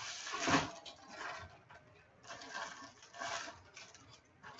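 Clear plastic bag crinkling and rustling in about five short bursts as hands shift the bagged jersey.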